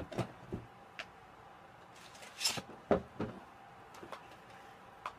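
Scattered knocks and clicks of things being handled in a small room, with a brief rustling hiss about halfway through and two thumps just after it, over a faint steady hum.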